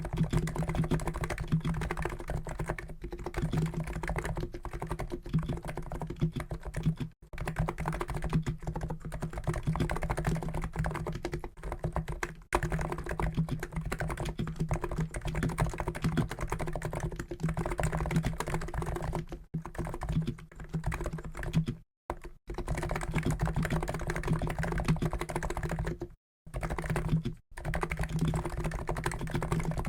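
Fast, continuous typing on a COX Endeavour keyboard with NIZ electro-capacitive (EC) 50 g switches: a dense run of keystrokes, broken by a few brief pauses.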